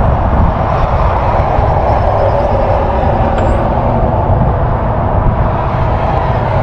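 A steady, loud mechanical drone with a low rumble beneath it.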